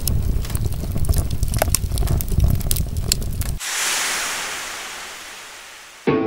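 Wind buffeting the microphone, a loud low rumble with scattered clicks. About three and a half seconds in it cuts off abruptly into a hiss that fades away, and guitar music starts at the very end.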